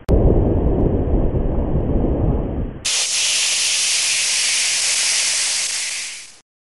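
Title-sequence sound effects: a deep rumbling noise with a sharp click just after the start, switching abruptly about three seconds in to a steady high hiss that fades out and stops just before the end.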